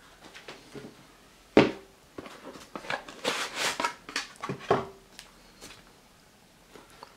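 Handling noise from a knit sneaker being turned over in the hands: a sharp knock about one and a half seconds in, then a few seconds of rustling and soft knocks, and a couple of faint ticks near the end.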